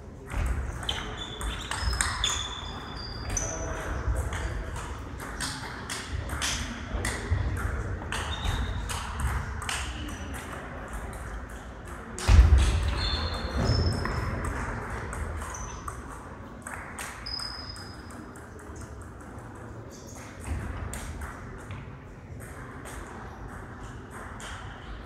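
Table tennis ball clicking back and forth off rackets and the table in quick rallies, with short high squeaks and a murmur of voices in the hall.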